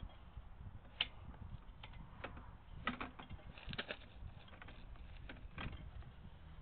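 Irregular clicks and knocks from a sewer inspection camera's push cable being fed by hand down a PVC sewer line, over a low steady rumble.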